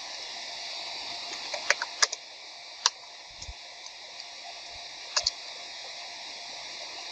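Scattered sharp clicks of a computer's keys or mouse buttons over a steady background hiss: a few close together about two seconds in, a single one about a second later, and a quick double click near the end.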